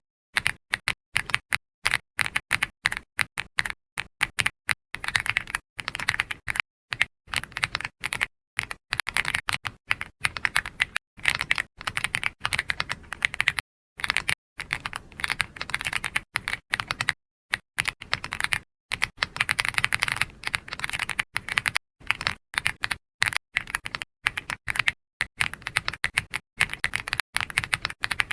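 Computer keyboard being typed on in quick, irregular runs of keystroke clicks, with short pauses between the runs.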